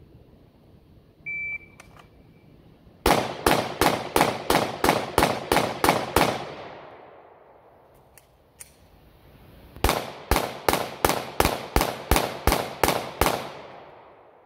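A shot-timer start beep, then a Glock 19X 9mm pistol with its factory trigger fired in two quick strings of about ten shots each, roughly three a second. There is a pause of about three and a half seconds between the strings, with a couple of faint clicks in it.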